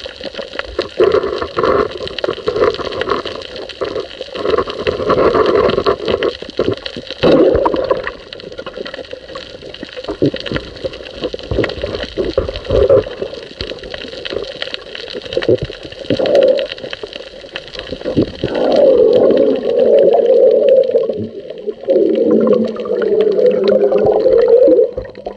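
Muffled underwater sound through a waterproof camera housing: gurgling, rushing water with many scattered clicks and knocks, and a wavering hum that grows louder in the last several seconds.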